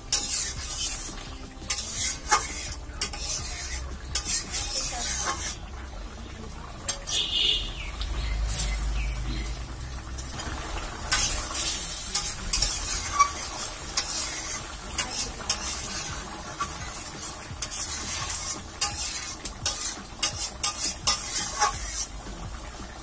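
Metal spatula stirring and scraping around a karai (wok) of pumpkin curry, with repeated irregular scrapes and clinks against the pan. Under it the curry sizzles and simmers over an open fire.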